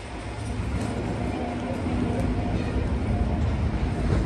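A vehicle's low, steady rumble with a faint hum over it, growing louder over the first couple of seconds and then holding.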